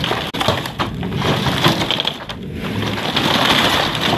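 Rotten wooden garage cracking and creaking as it is pulled over by a chain, its timber frame splintering in a run of sharp cracks that thicken into a continuous crunching near the end.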